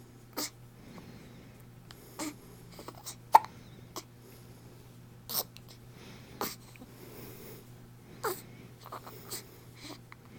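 A pet hiccuping repeatedly: short, sharp hics every second or two, about half a dozen in all, with the loudest about three and a half seconds in.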